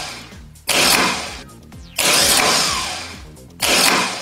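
Fiat Palio starter motor run on the bench through jumper wires: three times it spins up suddenly to full speed, then whines down as it coasts.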